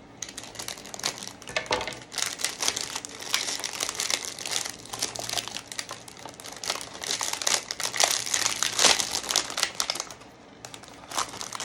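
Plastic snack wrapper crinkling as a cookie packet is handled and opened: a dense run of irregular crackling that eases off about ten seconds in, with a few more crinkles near the end.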